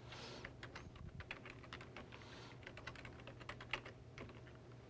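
Typing on a computer keyboard: a run of faint, quick, irregular keystrokes as text is entered into a spreadsheet cell.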